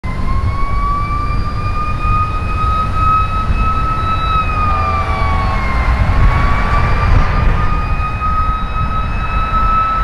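Fire engine siren wailing, its pitch slowly rising, dipping once about six seconds in, then rising again. Passing road traffic rumbles underneath.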